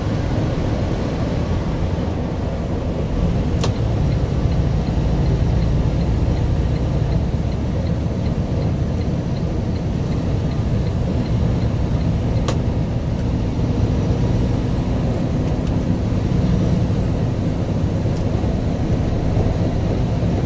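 Steady cab noise of a semi truck driving at highway speed: engine drone and tyre and road noise, strongest in the low end. Two short clicks about four and twelve seconds in.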